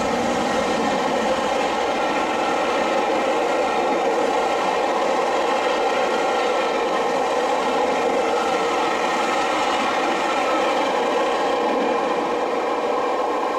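Steam-hauled passenger train running past at speed behind GWR King class No. 6024 'King Edward I': a steady, loud rumble and clatter of coach wheels on the rails that holds level throughout.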